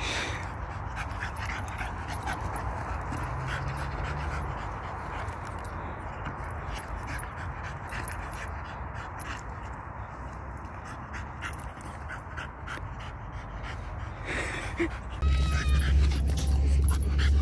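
French bulldog rolling over and over on grass, with breathy dog sounds and grass crackling under him. Near the end a loud low rumble of wind on the microphone comes in.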